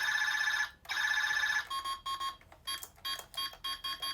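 Buzz Lightyear talking action figure playing an electronic sound effect through its small speaker: two long warbling tones, then a run of short, evenly spaced beeps.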